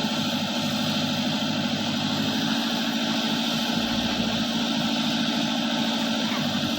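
JCB digger's diesel engine running steadily.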